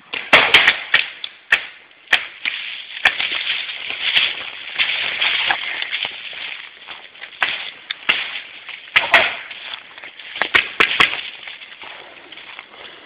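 Paintball markers firing, sharp pops singly and in quick clusters of two to four, loudest near the start and again about nine to eleven seconds in. Under them, a steady crunch and rustle of footsteps moving fast through dry leaves and twigs.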